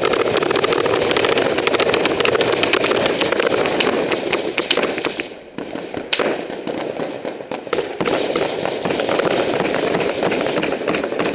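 Heavy small-arms gunfire in a firefight: many rapid shots overlapping into a constant crackle. It eases briefly about five seconds in, then a single loud shot cracks and the firing picks up again.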